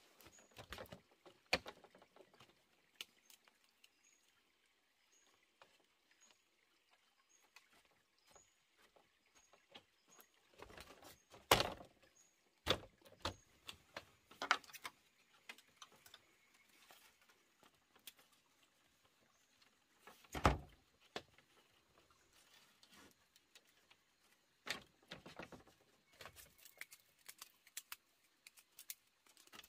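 Scattered sharp knocks and clatters, a few louder than the rest (the loudest about a third of the way in and again about two-thirds in), over faint rustling. A faint high chirp repeats steadily through the first half.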